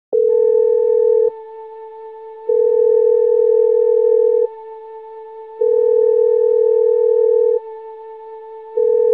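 Electronic intro tones: a steady high tone holds throughout while a lower, louder tone switches on four times, each for one to two seconds, with roughly one-second drops in between, the last starting near the end.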